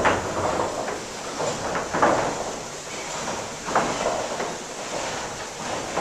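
Water-powered up-and-down sash saw and its oak wood-on-wood gearing running at about 30 strokes a minute: a rhythmic clunk and rasp about every two seconds, with a steady rush under it.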